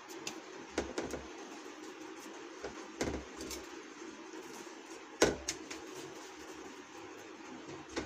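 Dough for samosas being pinched off and rolled into balls by hand on a steel plate: a few short sharp taps and clicks, the loudest about five seconds in, over a steady low hum.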